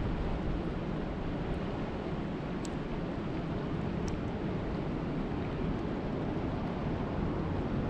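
Steady rushing noise of lake water, with wind rumbling on the microphone, and two faint ticks about three and four seconds in.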